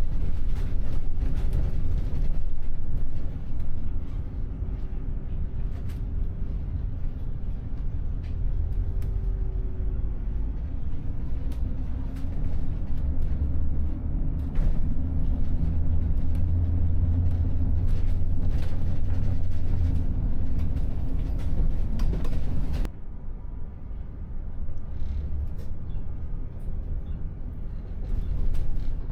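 City bus in motion, heard from inside: steady engine and road rumble. Near the end it turns suddenly quieter and duller.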